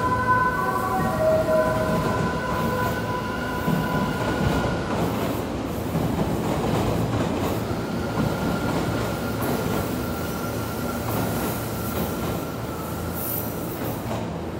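Odakyu Romancecar MSE electric train rolling slowly through the station, with a steady rumble of wheels on rail. A high steady wheel squeal runs through the first few seconds and comes back from about eight seconds in, and a few changing musical notes die away in the first second.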